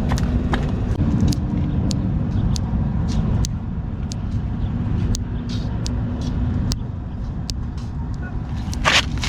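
Thumb joints cracking and popping: many sharp clicks, one or two a second, over a steady low rumble, with a louder rushing burst near the end.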